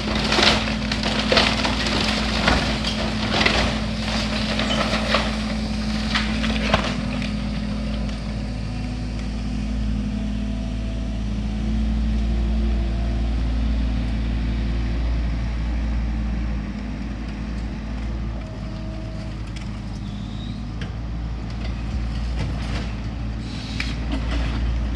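Excavator demolishing a wooden house: its diesel engine drones steadily while the attachment crushes and splinters timber, with a dense run of cracking and snapping in the first seven seconds or so and a few more cracks near the end.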